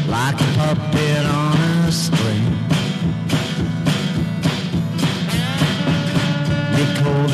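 Acoustic guitar playing an instrumental passage of rough hillbilly blues, with a steady driving beat over sustained low bass notes.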